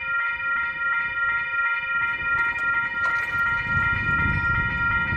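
Railroad grade-crossing warning bell ringing rapidly, about four dings a second, as the crossing signals activate for an approaching train. A low noise builds beneath it in the second half.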